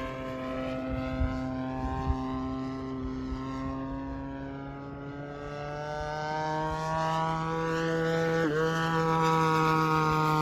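Radio-controlled model airplane's motor and propeller running in flight, its pitch rising gradually and then dipping sharply as it passes about eight and a half seconds in.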